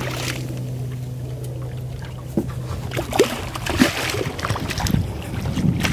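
A hooked redfish thrashing and splashing at the surface beside the boat, in scattered irregular splashes from about two seconds in. Under the first two seconds a steady low hum runs, then stops.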